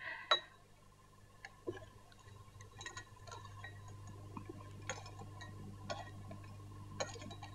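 Knives and forks clinking lightly on china plates as people eat at a table, in scattered faint clicks over a steady low hum.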